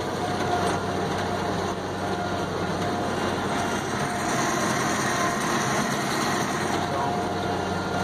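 Worn-out John Deere 2360 self-propelled windrower running steadily while cutting wheat with its draper head, heard from inside the cab with the door and a window open: a constant engine hum under an even mechanical rush.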